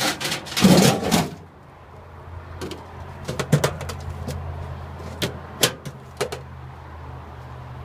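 Stainless steel trash-bin flap on a food truck's side being handled: a loud metallic rattle at the start, then a string of sharp metal clicks and knocks as it is worked, over a steady low hum.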